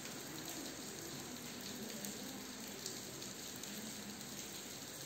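Faint steady hiss of room tone and recording noise, with no distinct event.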